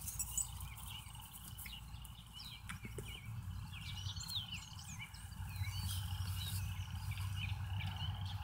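Birds chirping and singing in many short, quick calls. A low steady hum grows in from about three seconds in.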